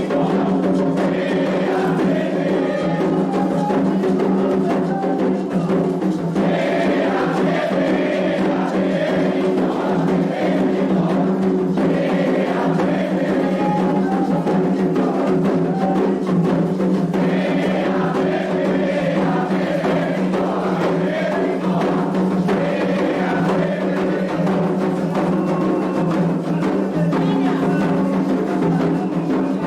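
Candomblé toque for the orixá Ossain: atabaque hand drums and struck percussion play a steady rhythm under a group singing the chants.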